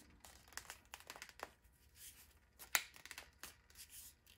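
Thin aluminium sheet crinkling and scraping in the hands as it is fitted around a shimmed spindle: a string of short, irregular rustles and taps, with one sharper click a little past halfway.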